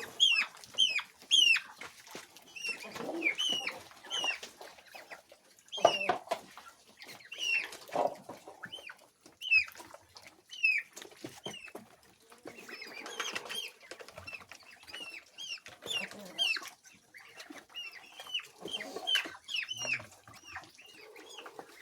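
Chickens calling while they feed: many short, high peeps scattered throughout, with a few lower clucks and sharp taps between them.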